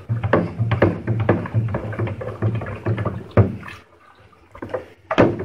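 Long plastic spoon stirring mead must in a glass carboy: rhythmic swishing of the liquid with the spoon knocking the glass about four times a second. The stirring stops about four seconds in, followed by a couple of single knocks.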